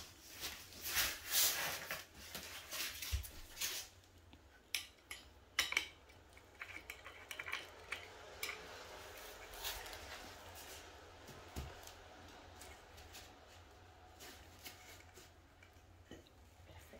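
Small metal clinks, knocks and scraping as a bolt and Allen key are worked into the corner of a flat-pack wooden chair frame. The clicks come irregularly, busiest in the first few seconds.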